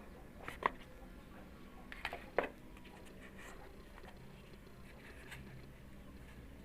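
A few light clicks and knocks from small hard objects being handled, in two short clusters about a second and a half apart, over a low steady hum.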